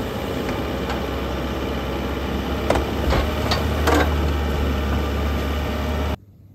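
Rear-loader garbage truck's engine running steadily while its hydraulic lifter raises and tips a wheeled plastic bin, with a few knocks as the bin tips over about three to four seconds in. The sound cuts off suddenly near the end.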